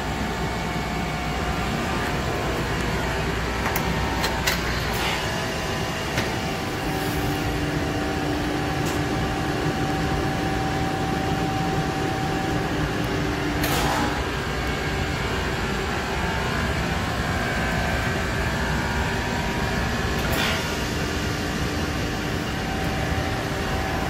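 Liebert computer-room air-conditioning unit running: a steady rush of air from its blower with a hum underneath, and a few short clicks.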